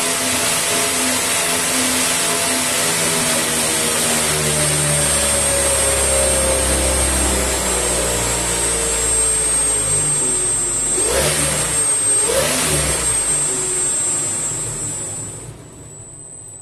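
3D-printed axial-flux brushless DC motor spinning a propeller: a loud rush of pushed air with a steady high whine, its tone slowly falling as the motor winds down. Two brief swoops in pitch come about two-thirds through, and the sound fades out near the end as the propeller coasts to a stop.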